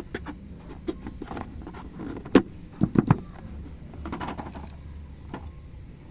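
Slime being squished and worked by hand: scattered wet clicks and crackles, with a few sharp pops near the middle.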